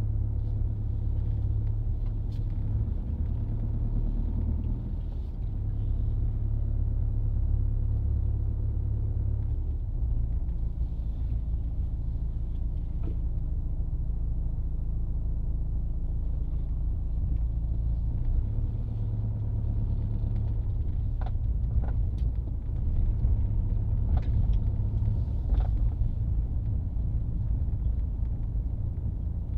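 A BMW's engine running at low revs while the car reverses, heard from inside the cabin as a steady low rumble. A few faint clicks come about three-quarters of the way through.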